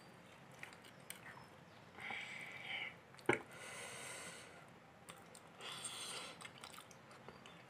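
Faint eating sounds from a set rice pudding (payesh) handled out of a small glass bowl: a spoon and fingers clicking against the glass and squishing the thick pudding, with soft mouth and breath noises, and one sharper click a little past three seconds in.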